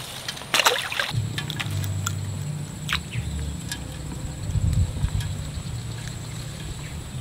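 A splash about half a second in as a released belida (featherback) fish is tossed back into the water, followed by a steady low rumble.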